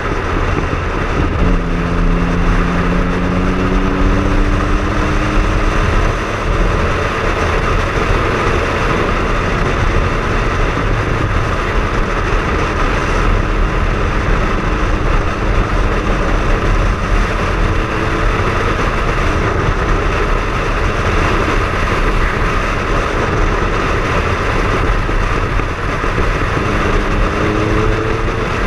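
Triumph Speed Triple's inline three-cylinder engine pulling while riding, under a loud steady rush of wind and road noise. The engine note rises as the bike accelerates about two seconds in, and again near the end.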